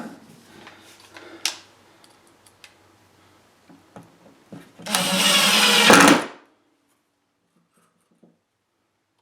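A few light knocks and clicks, then a power drill runs at a steady speed for about a second and a half, drilling a hole for the leather strap handle's screws in the wooden box, and stops.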